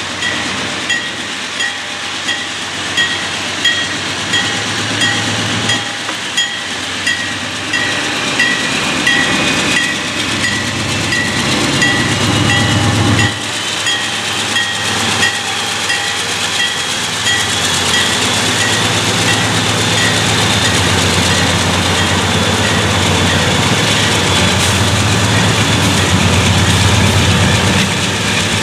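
CSX freight train with GE wide-cab diesel locomotives passing close by, the engines' low rumble building as they go past. A grade-crossing bell rings about twice a second through the first half or so.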